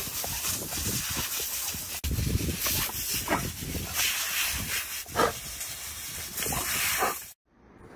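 Garden hose spray nozzle hissing while a dog bites and snaps at the water jet, with the dog's noises over the spray. The sound cuts off suddenly near the end.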